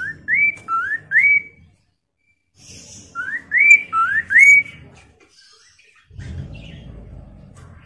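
Caged Poksay Mandarin laughingthrush whistling: two phrases of four quick rising notes, a couple of seconds apart. A low rumbling noise follows near the end.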